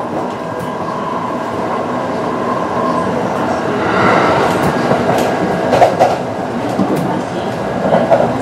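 Kintetsu 9020 series electric train running, heard from inside the car: a steady rumble under the whine of its Mitsubishi IGBT-VVVF inverter and traction motors. The wheels click over rail joints several times in the second half.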